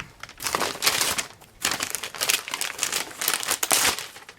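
Wrapping paper crinkling and rustling in quick bursts as a present is unwrapped by hand, with a brief pause about a second and a half in.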